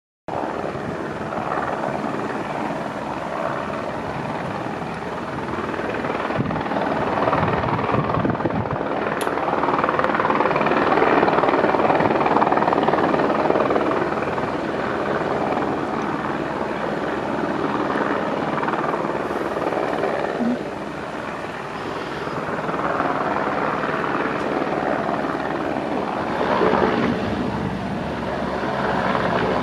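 Rescue helicopter's rotor and engine noise, continuous throughout, swelling louder and fading back as it moves about overhead, loudest about a third of the way in and again near the end.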